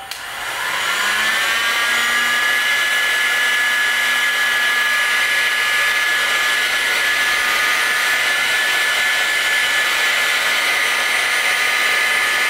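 Makita heat gun switched on: its fan motor's whine rises in pitch as it spins up over the first second or so, then it runs steadily with a rush of hot air, shrinking heat-shrink tubing onto a cable.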